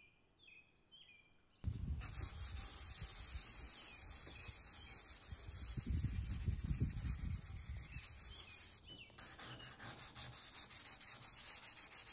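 Cured Bondo body filler on a car hood being sanded by hand with sandpaper on a pad: a fast, steady run of back-and-forth rasping strokes that starts about a second and a half in, with a short break near three-quarters of the way through. A few short bird chirps come just before the sanding starts.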